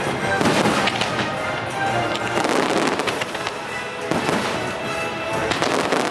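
Fireworks bursting and crackling in quick succession over a loud orchestral music score played for the show.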